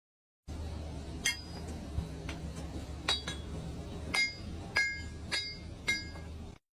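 A series of sharp metallic clinks that ring briefly, spaced irregularly at first and then coming about twice a second near the end, over a steady low hum.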